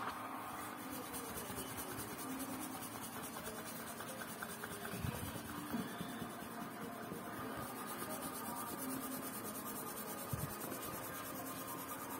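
Fingers brushing and sliding across the pages of an open paperback book: a soft, steady paper rubbing, with a few faint knocks.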